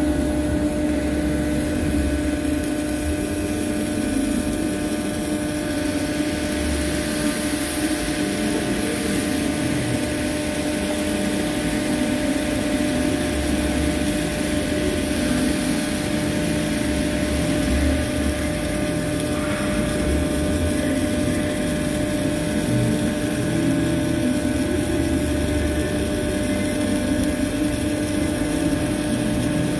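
Pipe welding: a steady hum from the welding machine under a continuous, even hiss from the arc, holding unbroken throughout.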